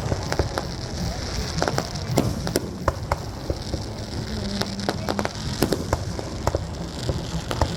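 Fireworks crackling: many small, sharp pops scattered irregularly, with no single big boom standing out.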